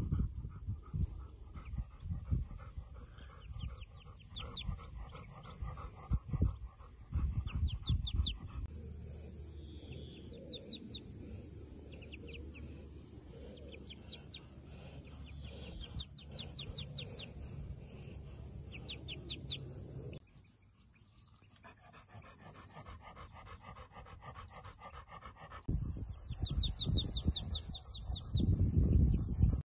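A Golden Labrador panting, while a brood of ducklings peep in quick runs of high chirps around it.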